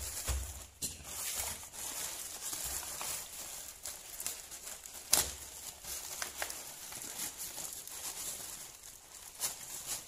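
Plastic courier mailer bag crinkling and rustling as it is handled and opened, with irregular sharp crackles; the loudest comes about five seconds in.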